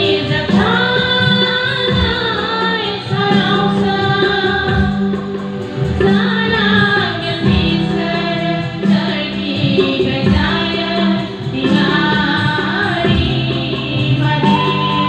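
Music: a song with female and group singing over instrumental accompaniment.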